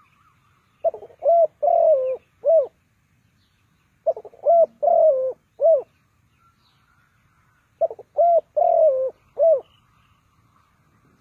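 Spotted dove cooing: three short phrases of about four notes each, roughly three seconds apart. A faint higher chirping runs between them.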